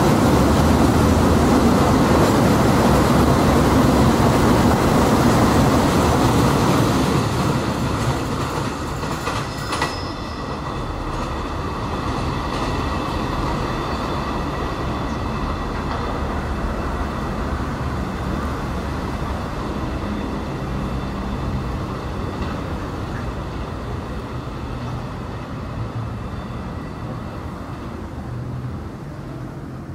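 Long container freight train's wagons rumbling and clattering over the rails, loud at first, then fading from about seven seconds in as the train draws away. A thin, high wheel squeal on the curve sets in about ten seconds in and rings on faintly.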